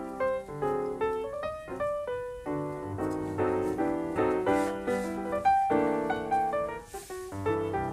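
Background piano music: a continuous melody of short notes.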